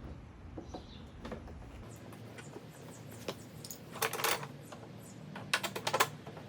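Scattered light clicks and rattles of a lawn mower's handle hardware being handled as the handle is extended and its fastening screws are fitted back in, loudest in small clusters about four and six seconds in.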